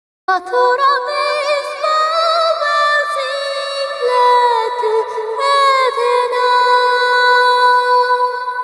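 Pachinko machine's jackpot music: a song with a female singer over synthesized backing, cutting in abruptly after a brief silence.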